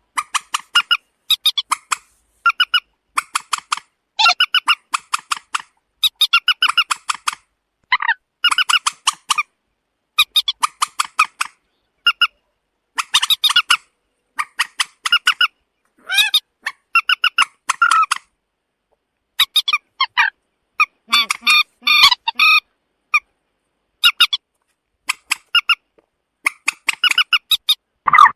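Common moorhen calling: repeated bursts of short, sharp notes, each burst about a second long and coming every second or two, with silence between.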